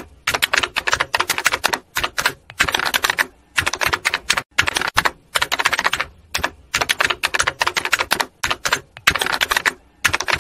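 Typewriter sound effect: rapid keystroke clicks in clusters of about a second each, with short pauses between them.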